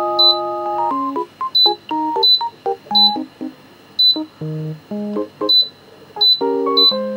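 Short high electronic beeps from a Deerma air humidifier's timer button, about nine of them at irregular spacing as the timer is stepped up press by press. Piano-like background music plays louder underneath.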